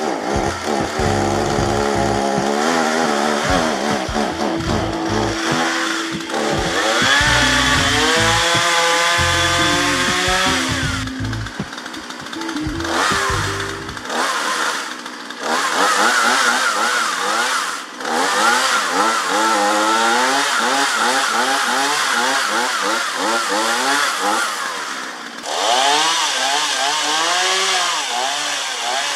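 Chainsaw running and cutting wood, its engine pitch rising and falling as it revs and bogs under load through the cuts.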